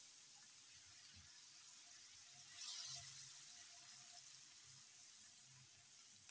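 Faint sizzle and bubbling of a tomato and onion masala cooking on low heat in a nonstick frying pan, stirred with a silicone spatula, with a brief louder hiss about three seconds in.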